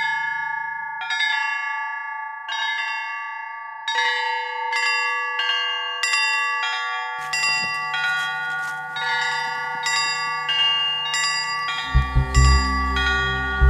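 The community's bells rung as a melodic peal: bells struck one after another, slowly at first and then quicker from about four seconds in, each note ringing on under the next. A deeper, rhythmic low sound joins near the end.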